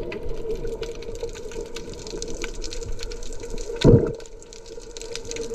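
Underwater water noise picked up by a snorkeler's camera: a continuous wash and bubbling with a dense crackle of small clicks and a steady hum, and one louder low whoosh about four seconds in.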